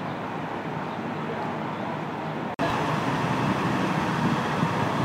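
Steady city-street traffic noise. There is a sudden break about halfway through, after which the noise is louder.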